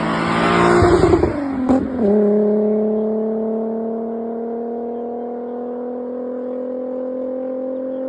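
VR6 engine revving hard under load with a rough, noisy edge for about two seconds, its pitch dipping, then holding a steady, high-revving drone that creeps up slightly in pitch.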